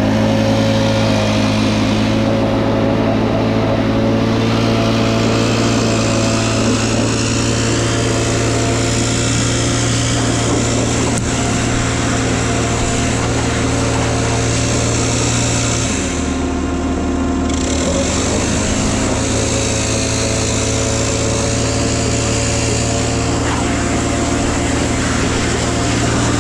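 Case skid steer engine running steadily at working throttle, driving a Shearex forestry mulching head, with a rushing noise over the engine. The engine note dips briefly about sixteen seconds in, then recovers.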